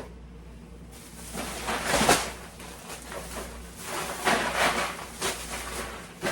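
Rustling and crinkling of plastic food packaging as items are handled and tossed into the garbage, with a few light knocks. The loudest knock comes about two seconds in.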